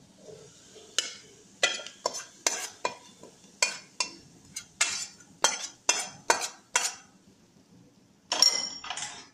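A metal spoon scraping and knocking against a kadai, about a dozen sharp clinks roughly two a second, as fried onions are scooped out of the pan and into the kuzhambu. Near the end comes one longer, louder rasping sound.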